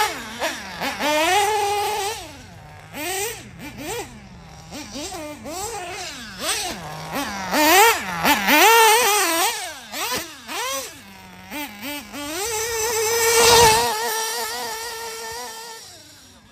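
Mugen MBX7R 1/8-scale buggy's Picco P3R nitro engine revving up and down over and over as the buggy is driven through the corners. Near the end it holds a steady high pitch at full throttle on a straight, loudest a little past two-thirds of the way through, then fading away.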